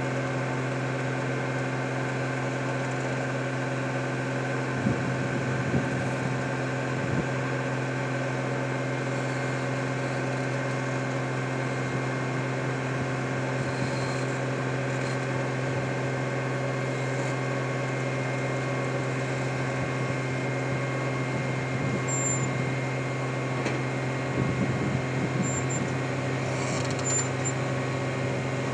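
Vögele Super 1800-1 tracked asphalt paver's diesel engine running at a steady speed as it crawls up the ramps onto a lowbed trailer. A few knocks and clanks come through about five to seven seconds in and again near the end.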